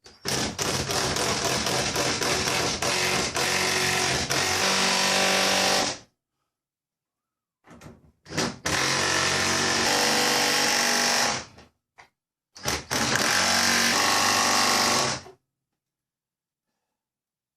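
Power drill running in three bursts: a long one of about six seconds, then two shorter ones, each stopping abruptly.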